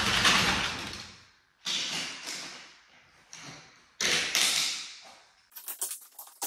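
Hand work on a ceramic tile floor: three scraping swishes, each fading over about a second, then a run of quick light clicks and taps near the end.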